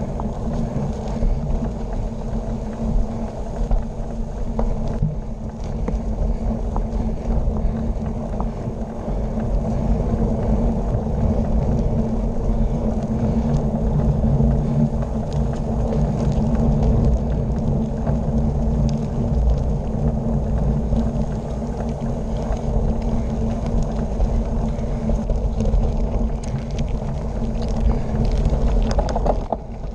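Wind buffeting a handlebar-mounted camera's microphone together with the steady rumble of bicycle tyres rolling fast over a gravel road. Scattered small ticks of grit come through, more of them near the end.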